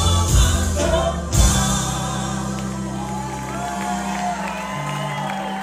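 Live band music with a singer and a steady bass line: two hard drum hits in the first second and a half, then sung lines over the band, with some crowd noise.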